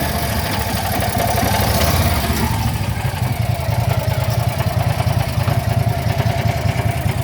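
The Landmaster's small gasoline engine running steadily at a raised idle, with an even low pulsing, warm after a quick start.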